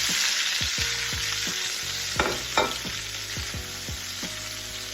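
Diced bell peppers and onion sizzling in hot oil in a wok, the sizzle starting suddenly and loudly as they go in, then easing a little. A couple of sharp utensil knocks against the wok come about two seconds in as they are stirred.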